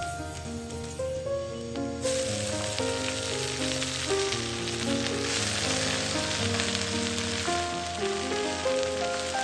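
Food frying and sizzling in hot oil in a pan; the sizzle starts suddenly about two seconds in and then runs on steadily. Background music with a plucked melody plays underneath.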